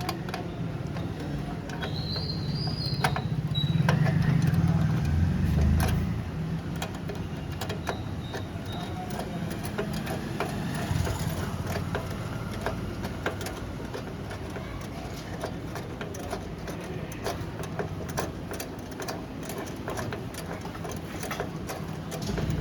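A motor vehicle engine running nearby, louder about two to six seconds in, under many scattered small sharp clicks and taps.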